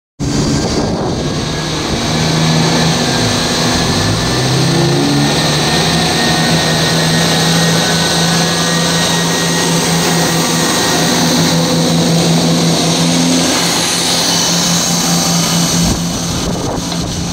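A TransPennine Express diesel multiple unit running past the platform at close range: a steady diesel engine drone over the rushing noise of the wheels and air. The engine note dips and then rises again about four to five seconds in, and fades out about three-quarters of the way through.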